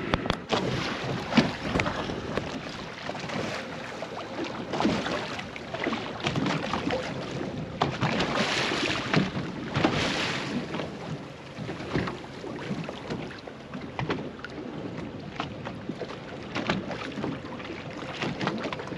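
Boat under way on open water: wind buffets the microphone and water slaps and splashes irregularly against the hull.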